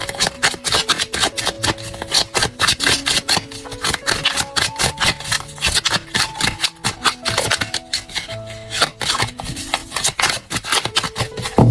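A deck of tarot cards being shuffled by hand, a rapid run of papery card clicks and slaps that thins out for a stretch partway through, over soft background music with held notes.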